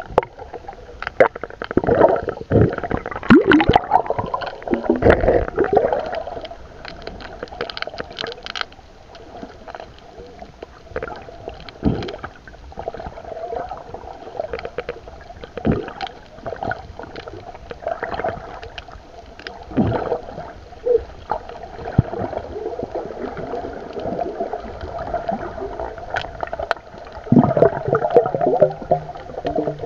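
Muffled underwater sound through a camera's waterproof housing: water rushing and gurgling around the camera, broken by irregular knocks and thumps.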